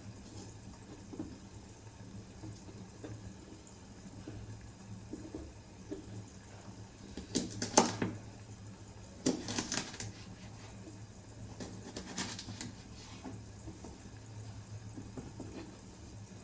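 Kitchen handling noises: three short bursts of light clicks and knocks from utensils and dishes being moved about, over a steady low hum.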